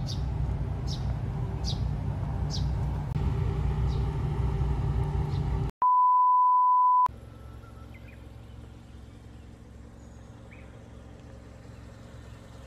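A steady 1 kHz test-tone beep of about a second, the loudest sound here, cutting in and out sharply. Before it comes a low rumble with short high chirps repeating about once a second; after it comes a quieter steady low hum.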